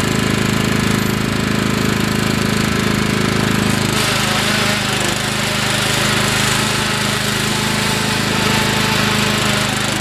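Riding lawn mower engine running steadily at high throttle under heavy load as it tries to tow a car, its rear tyres failing to get traction. A hiss grows over the engine from about four seconds in.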